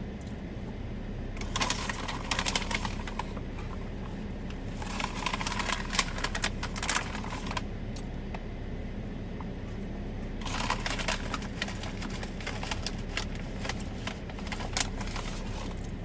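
Steady low hum inside a parked car, with three spells of dense crackling clicks, the middle one the loudest.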